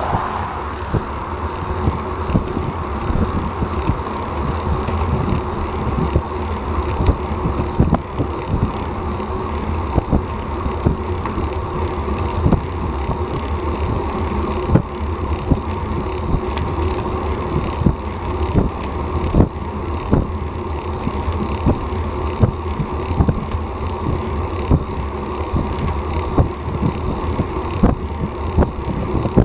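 Wind buffeting a bike-mounted action camera's microphone on a road bike moving at about 19 mph, with steady road and tyre rumble and frequent small irregular knocks. A passing car's noise fades away in the first second or so.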